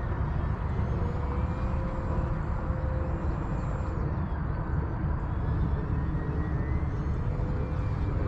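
Electric motor and propeller of an FMS 1500mm Cessna 182 RC plane droning faintly in flight, its pitch drifting gently up and down, over a constant low rumble.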